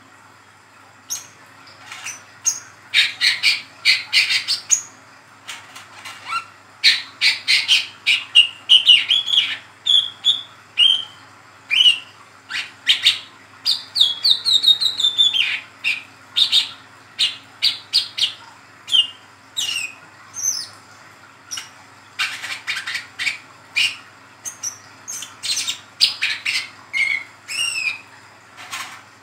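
Young male brown-throated sunbird (wiceh trotol) singing its rapid 'ngeriwik' twitter: quick high chirps and short downward-sliding notes in busy bursts, with brief pauses between them.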